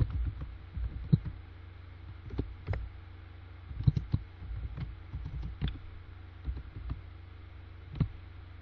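Computer keyboard typing: irregular keystrokes in small clusters with pauses between, over a low steady hum.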